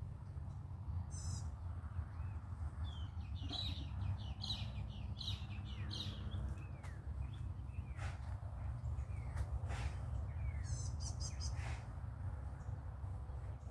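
Several birds calling: short chirps, quick trills near the start and about three quarters of the way through, and notes falling in pitch around the middle. A steady low rumble runs underneath.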